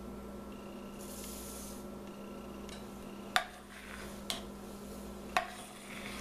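Quick-cook oats poured from a measuring cup into a steel saucepan of chocolate mixture, a soft rustling hiss about a second in, followed by three sharp clinks against the pan as the oats are stirred in.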